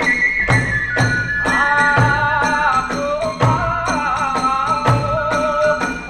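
Kagura hayashi accompaniment: a bamboo transverse flute playing a wavering melody over steady drum strokes, about two a second, with small hand cymbals clashing. The flute line drops lower about a second and a half in.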